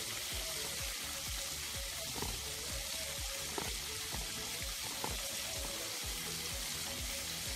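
Chicken pieces deep-frying in hot vegetable oil in a cast-iron pot: a steady sizzle with a few short pops.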